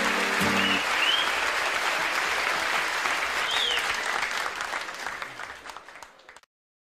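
Audience applauding at the end of a song, with the last strummed guitar chord dying away under a second in and a few short whistles; the applause fades and cuts off about six and a half seconds in.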